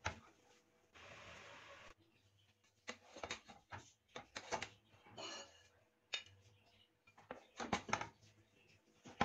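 Metal spoon scraping and knocking against a non-stick pot as cooked biryani rice is turned and lifted: a run of short, faint scrapes and clicks, with a brief steady hiss about a second in.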